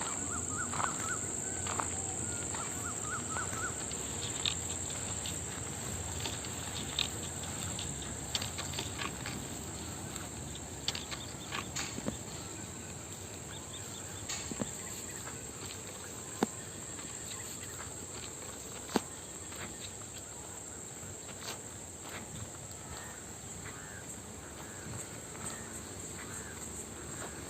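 Steady high-pitched drone of insects, likely crickets, running throughout, with scattered short clicks and rustles over it.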